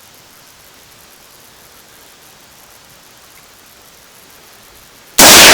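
A single AR-15 rifle shot near the end, very loud, with its echo trailing off slowly. Before it there are a few seconds of steady faint hiss.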